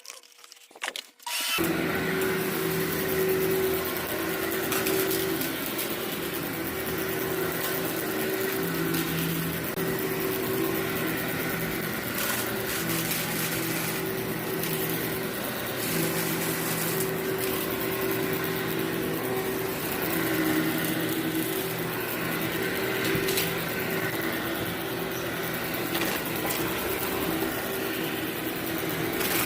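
Vacuum cleaner running steadily on a heavily soiled carpet, with scattered crackles of gritty debris being sucked up. It starts suddenly about a second and a half in.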